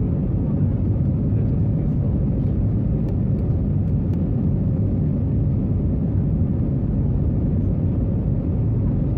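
Steady low cabin rumble of an Airbus A321neo climbing after takeoff: its Pratt & Whitney geared turbofan engines at climb thrust and the airflow over the fuselage, heard from inside the passenger cabin.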